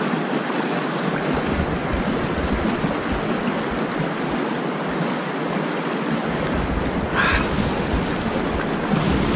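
Steady rushing of shallow stream water flowing below a spillway, with a short, brighter sound about seven seconds in.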